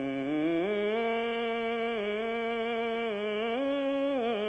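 A man singing one long drawn-out vowel in the sung style of Telugu verse (padyam) recitation. The pitch rises about half a second in, then holds with small wavering turns.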